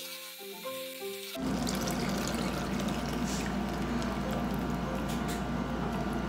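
Short background music of plucked notes that cuts off suddenly about a second and a half in. It gives way to a steady hiss with a low hum as a thin stream of liquid is poured from a pan through a mesh strainer into a steel bowl.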